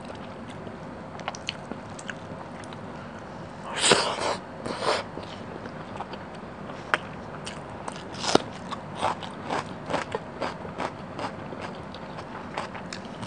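Close-miked eating sounds of a person eating fish curry and rice: a loud bite about four seconds in, then steady chewing with wet mouth clicks, about two a second.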